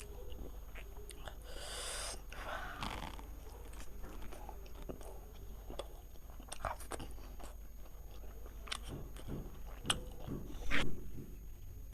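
A person chewing and eating close to the microphone, with scattered crunches and mouth clicks. There is a short rush of noise about two seconds in, and a louder one near the end.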